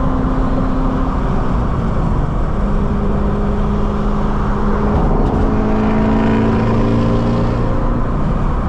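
2003 Mustang SVT Cobra under way, heard from inside the car: steady engine and road noise, with the engine hum shifting in pitch a couple of times as the revs change.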